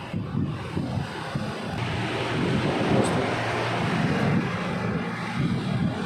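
Steady rushing, blowing noise like an air blower, growing louder about two seconds in.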